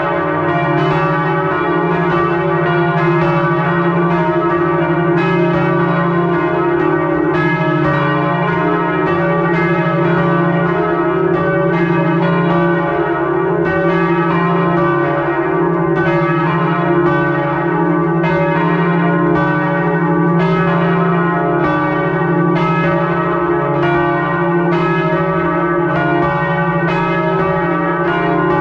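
Church bells swinging in full peal, heard close up from just above them in the belfry. Their clappers strike about twice a second in an overlapping rhythm over a continuous, dense ringing.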